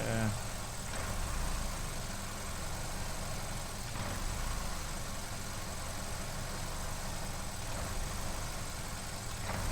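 Vauxhall Corsa E's 1.4 Ecotec four-cylinder petrol engine idling roughly, a misfiring idle from running lean, with short-term fuel trims at +33% and an air leak suspected.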